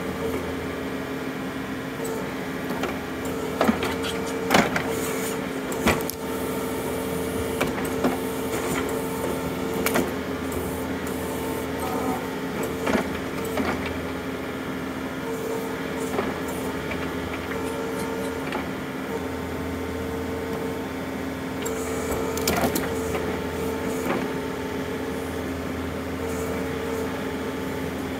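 John Deere compact utility tractor's diesel engine running steadily while its backhoe digs out and pries at a tree stump, with scattered sharp cracks and knocks of roots and wood breaking and the bucket striking the stump.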